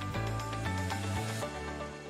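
Background music: steady notes with a few changes of chord, beginning to fade out.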